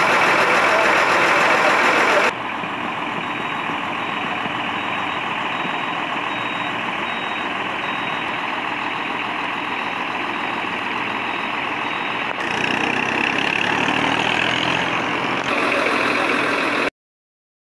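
Outdoor road-traffic noise from a series of spliced clips, changing abruptly at each cut. Through the middle stretch a faint high-pitched beep repeats about twice a second, like a vehicle's reversing alarm. The sound cuts off to silence near the end.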